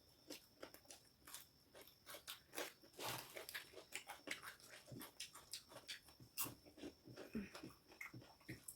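Faint chewing and mouth sounds of people eating a rice meal: soft, irregular smacks and clicks, several a second.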